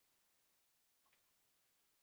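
Near silence: the microphone is picking up almost nothing.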